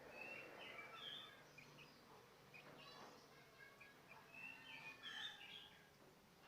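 Javan myna giving a run of faint, short chirps and whistles, busiest near the start and again about five seconds in.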